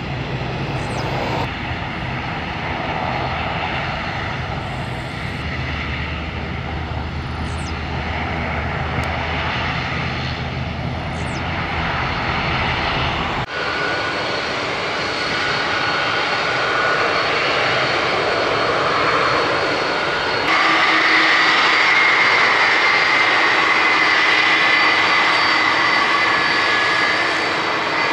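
A Boeing 747-8F's four GEnx turbofans running at high power on the runway, a steady jet noise with a low hum. After an abrupt cut about thirteen seconds in, a McDonnell Douglas MD-11F's three jet engines run at high power with a high whine, and they step up louder after a second cut about twenty seconds in.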